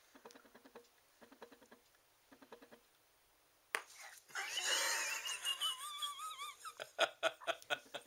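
Laughter breaks out about four seconds in, loud and high with a wavering pitch, then continues as short rhythmic bursts of laughing near the end. Before it there are only soft, short, rhythmic sounds.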